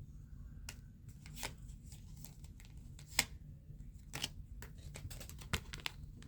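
Tarot cards being handled and laid out: scattered light snaps and taps, the sharpest about three seconds in, over a low steady hum.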